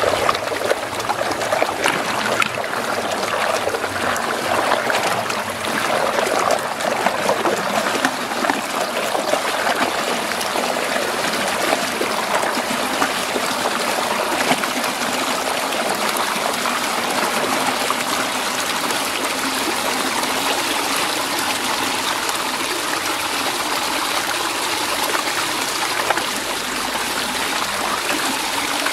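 Muddy water swirling and rushing down the drain hole of a whirlpool vortex, a steady watery noise that is choppier for the first ten seconds or so and smoother after.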